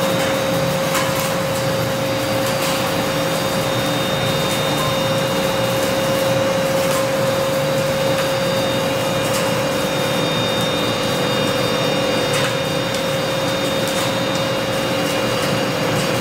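Olive mill cleaning line running: the conveyor and washer machinery give a loud, steady mechanical noise with a constant whine. A few faint clicks sound over it.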